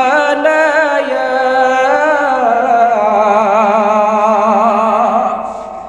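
A man's voice chanting one long, drawn-out sung note with a wavering vibrato, in the melodic style of a Bengali sermon (waz). The pitch steps down about halfway, and the note trails off near the end.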